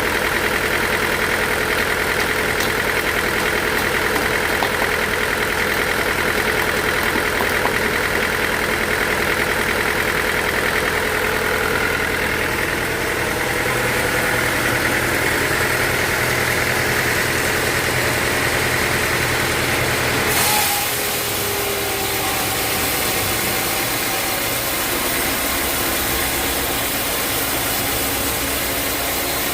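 Sawmill machinery running steadily. About two-thirds of the way through, the sound changes abruptly to a brighter, hissier tone.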